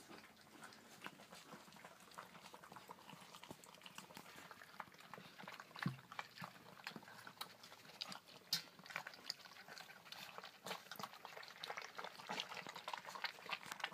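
A litter of puppies lapping and smacking at soft wet food in a stainless steel feeding pan: a faint, continuous run of small wet clicks and slurps.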